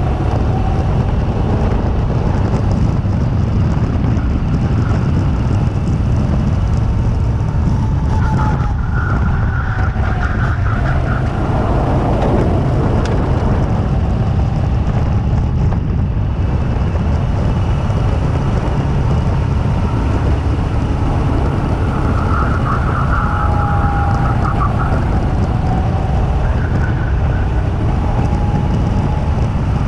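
Two-seater go-kart driving at speed, its motor whining in pitched tones that rise and fall, over a heavy low rumble of wind and vibration on the kart-mounted camera.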